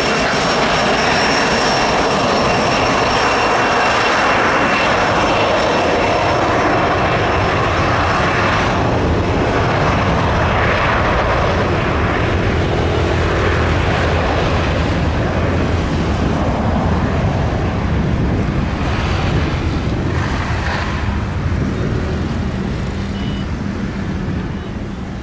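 Twin turbofans of an Embraer Legacy business jet at takeoff power on its takeoff roll: a steady loud jet roar with a high whine that fades after about eight seconds as the jet pulls away. The sound drops off near the end.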